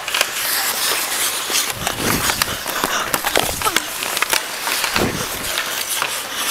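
Ice hockey skates scraping and carving on the ice, with many sharp clacks and knocks of sticks and puck.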